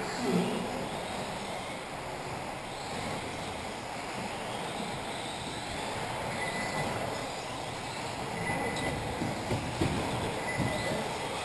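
Radio-controlled racing cars lapping a carpet track: a steady wash of motor whine and tyre noise that rises and falls as the cars pass. A few short high beeps sound through it, and a sharp knock comes near the end.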